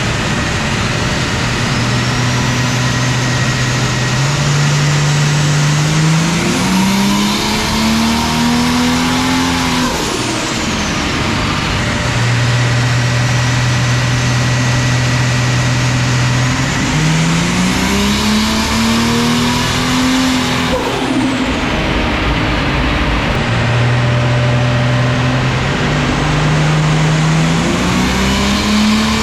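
Nissan RB30ET turbocharged straight-six on a chassis dyno, revving in climbing pulls. The pitch rises through each pull and breaks off sharply about ten and twenty-one seconds in, with turbo flutter as the throttle lifts. A third pull is climbing near the end.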